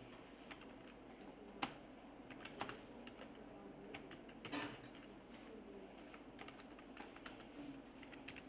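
Computer keyboard being typed on at an uneven pace: quiet scattered key clicks, a couple of them louder, about one and a half and four and a half seconds in.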